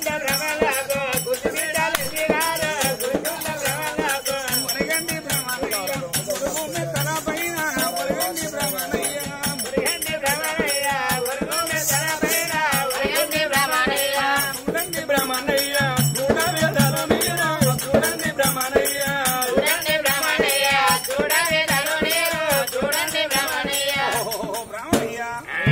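Oggu Katha folk singing: a voice sings a melodic narrative over a steady, rapid jingling rhythm from bells and cymbals. The music breaks off near the end.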